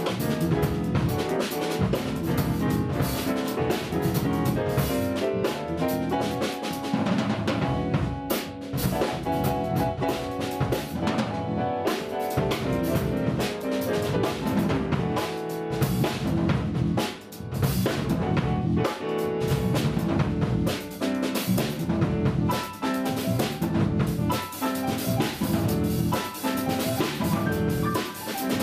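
A jazz piano trio playing together: a Yamaha grand piano, bass, and a Yamaha drum kit with frequent drum and cymbal strikes. The volume dips briefly about halfway through.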